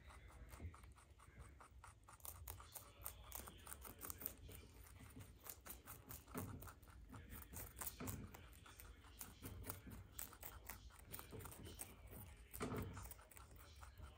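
Faint, rapid crunching of two baby rabbits chewing raw cabbage leaves, with a few louder crunches and tugs at the leaf.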